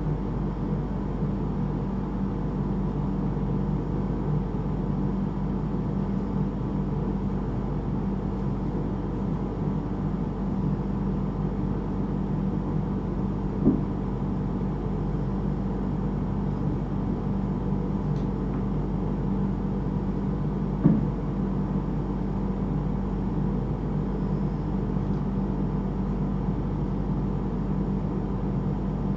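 A steady low mechanical hum, with two brief knocks, one about halfway through and another several seconds later.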